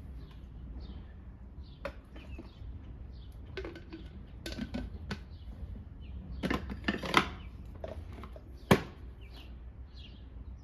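Handling of a drip coffee maker and its glass carafe: scattered clinks and knocks, the loudest a single sharp click near the end. Birds chirp in the background.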